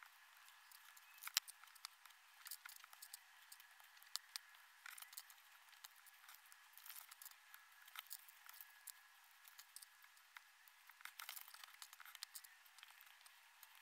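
Faint clicks and rattles of small plastic LEGO bricks being handled, picked from a loose pile and snapped together, with one sharper click about a second and a half in.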